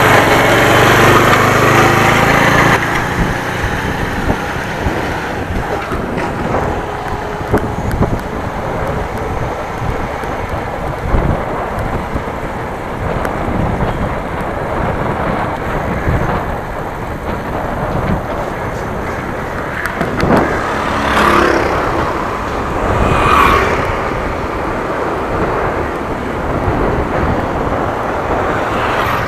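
Wind buffeting the microphone of an action camera riding along a road, a dense, irregular rumble. An engine is heard for the first couple of seconds, and two vehicles pass around two-thirds of the way through.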